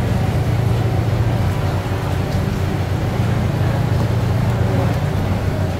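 Busy street-food market ambience dominated by a steady low mechanical hum, with a general wash of market noise over it.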